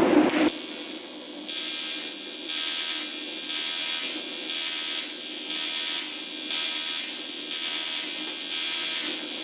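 TIG welding arc buzzing and hissing on cast aluminium, with the argon shielding gas turned up to fight contamination from the dirty metal. The buzz swells and fades a little more than once a second.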